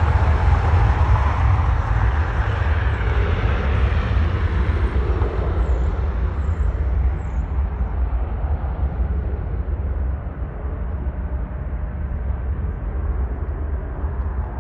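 Jet airliner engines running at takeoff power, a loud rumbling roar that slowly fades, dropping further about halfway through and again near ten seconds in, as the jet climbs away.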